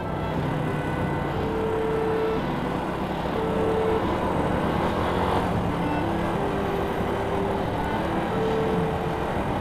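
Motorcycle engine running at a steady cruising speed with wind and road noise, heard from the rider's own bike.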